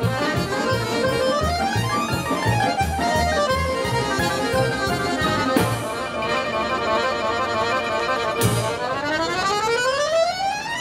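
Folk-instrument orchestra of domras, piano accordion and violin playing a tune over a regular bass beat, with a run climbing in pitch near the end.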